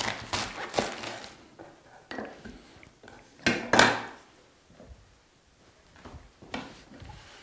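Chef's knife cutting through a quarter of red cabbage on a wooden cutting board: crunchy cuts and knocks of the blade and cabbage on the wood. The loudest are two sharp knocks about halfway through, as the pieces and the knife are set down on the board.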